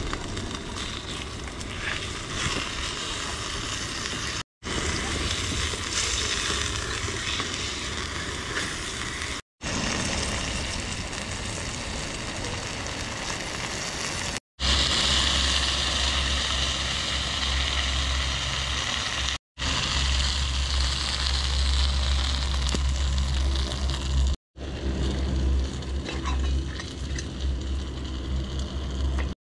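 Ginger-marinated pork slices sizzling as they fry in a small pan on a gas cartridge stove, heard in short stretches broken by brief silent gaps every five seconds or so. About halfway through the sizzle grows louder and a low rumble joins it.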